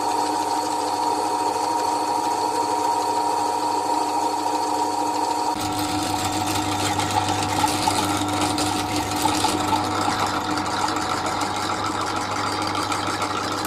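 Titan pillar drill's belt-driven motor running with a steady hum; about five and a half seconds in the sound turns rougher and noisier as the 7 mm bit cuts into 4 mm mild steel.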